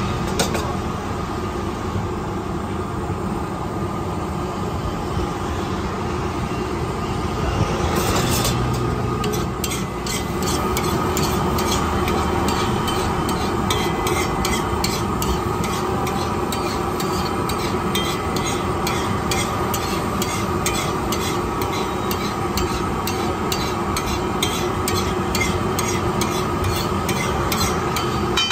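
Eggs sizzling on a large flat griddle. From about eight seconds in, a spatula repeatedly taps and scrapes against the griddle as the eggs are chopped and mixed.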